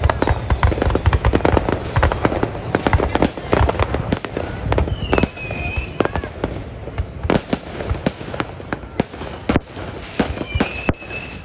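Fireworks display going off: a rapid string of bangs and crackles, densest in the first few seconds and thinning to separate bangs later. A couple of brief high-pitched tones sound about five seconds in and again near the end.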